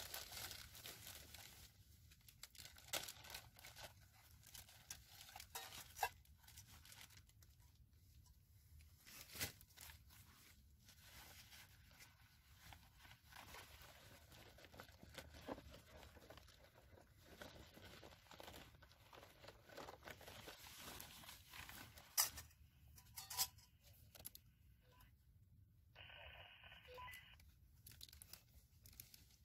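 Near silence with faint rustling and a few soft, scattered clicks or crackles, and a brief scratchy sound near the end.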